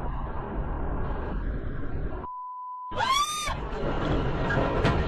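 Steady rumbling road noise in a moving car. About two seconds in it is cut by a censor bleep, a steady beep tone, which covers swearing. Then comes a short high cry rising and falling in pitch, and rough loud noise with a sharp crack near the end.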